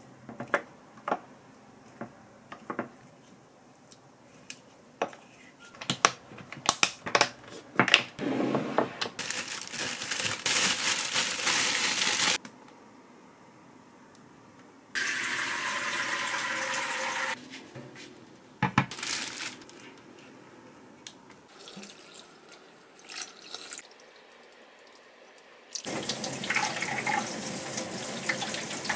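Kitchen tap running into a stainless steel sink in three spells, the last one rinsing a head of broccoli under the stream. Between the spells come scattered light clicks and taps of kitchen handling.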